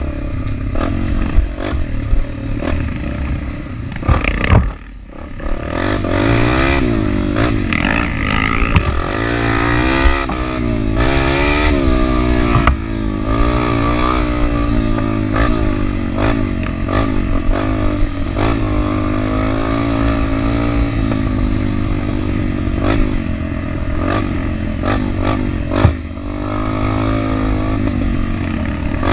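Trail motorcycle engine revving up and down while riding, its pitch rising and falling over and over, with scattered clattering knocks. The engine note drops away briefly about five seconds in.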